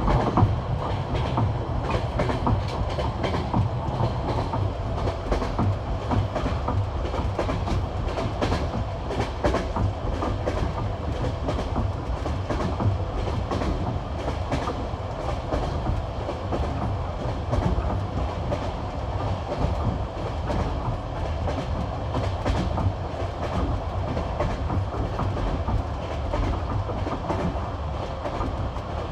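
Passenger train wheels clattering over the rail joints of old jointed (bolted) track at high speed: a steady rumble with a rapid, continuous clickety-clack.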